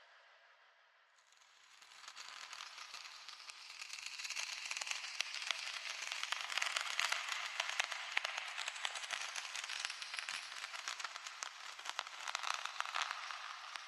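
Dense crackling noise made of many rapid small clicks over a hiss. It swells in from about a second in and thins out near the end.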